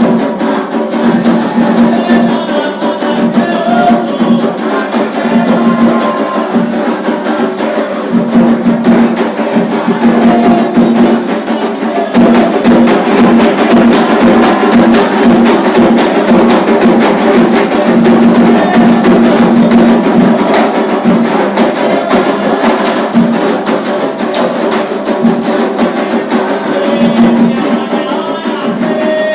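Afro-Brazilian ritual percussion music: hand drums under a fast, dense clicking beat like a wood block, with held low tones that come and go.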